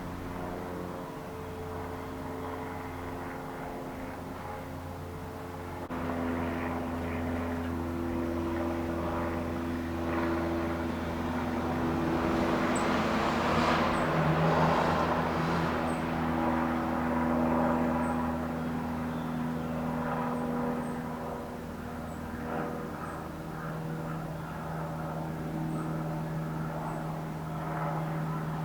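Steady engine drone of motor traffic, swelling to a peak about halfway through and then easing off, with faint high chirps about once a second in the second half.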